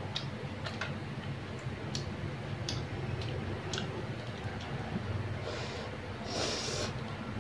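Someone eating spicy instant noodles with chopsticks: scattered small clicks, then slurping noodles in, loudest a little before the end, over a low steady hum.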